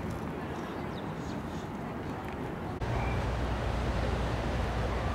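Outdoor background noise. About three seconds in it changes abruptly to a louder, steady low rumble.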